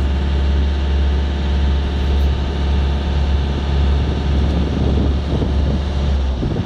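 A yacht's inboard engine running steadily at low revs while motoring, a loud low drone. The deepest part of the hum drops away near the end.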